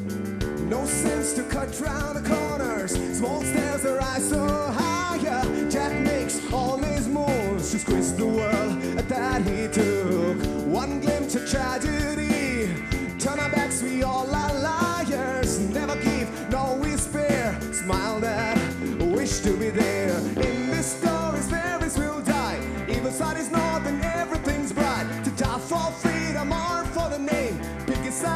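Live alternative rock band playing: electric guitar, bass guitar and drums, with a male voice singing at times.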